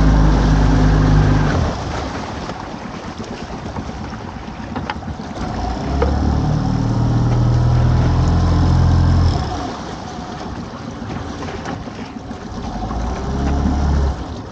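Small fishing boat's engine running, its steady note swelling louder and dropping back three times as the throttle changes, with a couple of sharp knocks about five seconds in.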